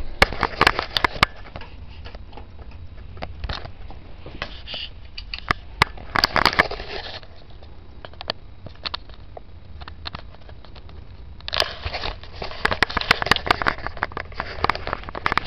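Crackling, clicking handling noise from a handheld camcorder being moved about. It comes in three bursts, at the start, around the middle and over the last few seconds, with scattered sharp clicks between and a low hum underneath.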